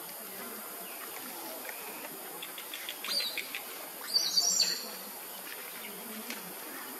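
A steady high insect hum. A short run of faint clicks comes about two and a half seconds in, and short high chirps follow around three and four seconds in; the second set of chirps is the loudest sound.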